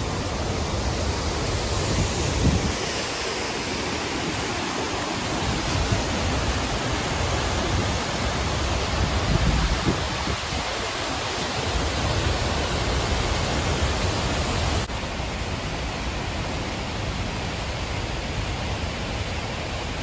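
Steady rushing of a large waterfall running high and fast with brown rainwater, with an uneven low rumble underneath.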